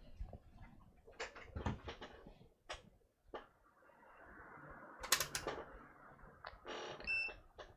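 Clicks and knocks of tools and parts being handled on a repair bench, with a short electronic beep near the end.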